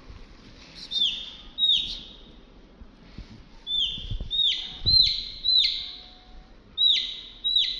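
A baby chick peeping loudly and repeatedly, each peep a sharp falling note, in bunches of two to four separated by short pauses: the chick's distress call.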